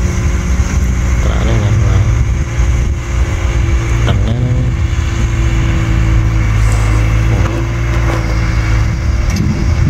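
Kubota M6040 tractor's diesel engine running steadily under load as the tractor ploughs dry soil.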